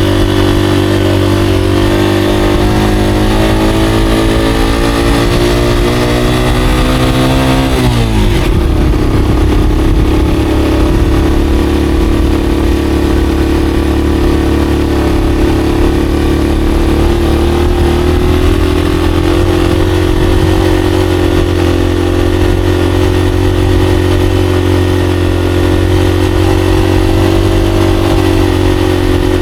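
Monarch Axis 125 trail motorcycle engine running under way: its pitch climbs steadily for several seconds, drops sharply about eight seconds in, then holds a steady note.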